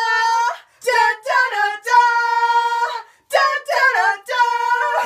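Young women singing loudly with no accompaniment, in short phrases with long held high notes.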